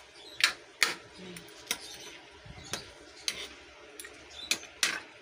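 Spatula knocking and scraping against a pan while stirring chicken pieces, in a string of irregular clicks and knocks.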